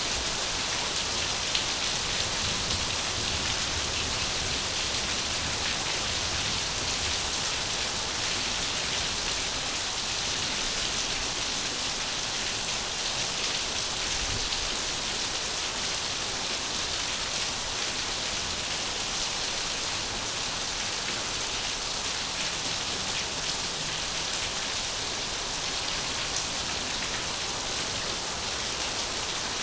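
Steady falling water, an even hiss with faint scattered pattering ticks, looped as a sleep sound.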